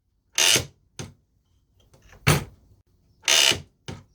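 Tools and metal parts being handled at the parking brake pedal assembly: three short, loud scraping clatters with two sharp clicks between them.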